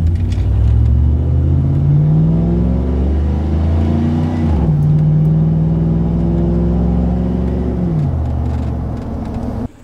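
Chevy Silverado V8 with long-tube headers and a catless Y-pipe, heard from inside the cab, accelerating from a stop. The exhaust note climbs, drops at a gear change about four and a half seconds in, pulls again, then falls as the throttle comes off about eight seconds in.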